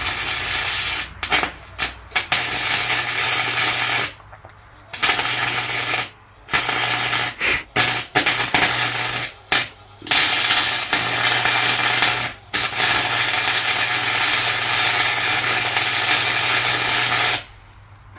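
Arc welder crackling as a bead is laid on thick steel differential spider gears. It runs in several short starts and stops, then one steady run of about seven seconds that cuts off near the end.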